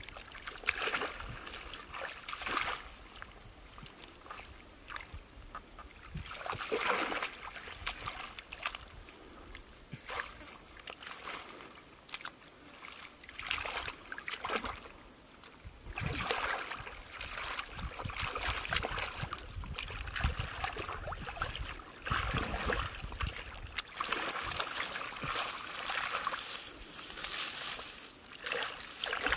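Hands digging and groping through mud and shallow muddy water, with irregular sloshing and splashing that grows busier in the second half.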